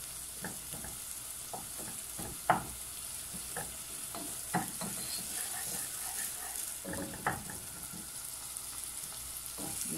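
Chopped onion, garlic and cubanela pepper frying in butter in a pot with a steady sizzle, while a wooden spoon stirs and scrapes, knocking against the pot now and then, most sharply about two and a half seconds in.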